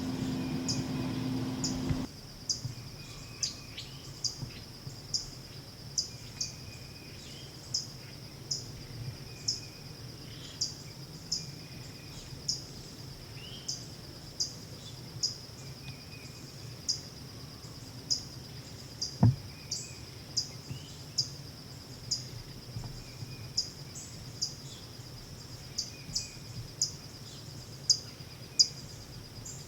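Insects chirping in the woods: a steady high-pitched trill with regular pulses about one to two a second, and occasional faint bird chirps. A low hum cuts off about two seconds in, and there is a single sharp click about 19 seconds in.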